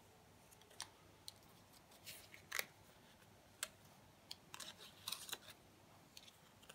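Faint rustling and light taps of cardstock die-cut pieces being picked up and shuffled by hand, in short scattered bursts that grow busier a little past the middle.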